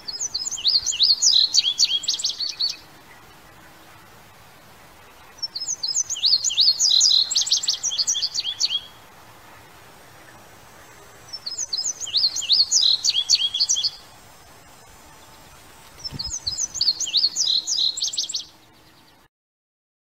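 Male indigo bunting singing: four high-pitched songs of about two and a half seconds each, a few seconds apart, each a quick run of repeated sweeping notes.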